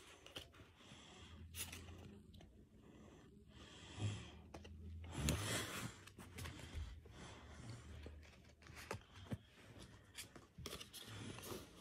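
Pokémon trading cards being handled: faint rustling and light clicks of cards rubbing and tapping against each other, with a louder rustle about five seconds in.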